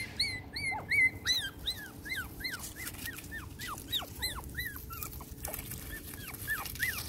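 Five-week-old Pomeranian puppies yipping: a quick run of short, high-pitched yips, each one rising and falling, about three a second, with a short pause about five seconds in.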